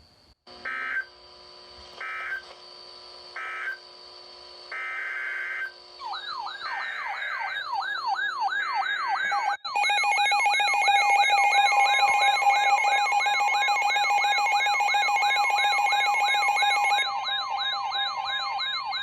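Emergency Alert System data tones: three short end-of-message bursts of digital screech, then three longer header bursts about a second apart. A loud steady two-tone EAS attention signal follows from about ten seconds in. A warbling siren sweeping up and down about three times a second comes in around six seconds in and runs under the attention tone.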